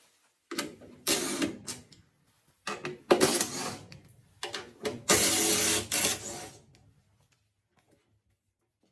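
A run of clattering and scraping handling noises in several bursts, the longest and loudest lasting about a second, after which it goes quiet.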